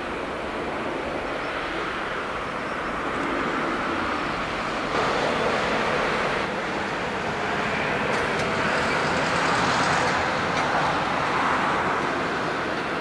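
Airbus A320 jet engines running at taxi power, a steady rushing noise that swells slightly about five seconds in.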